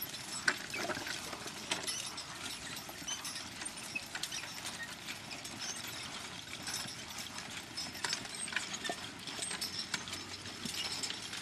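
A draft team pulling a plow: irregular clicking and rattling of harness and plow gear, with hoof sounds.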